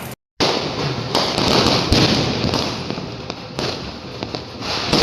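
Fireworks going off close by: a dense, continuous crackle with sharp bangs, the loudest about two seconds in and another near the end.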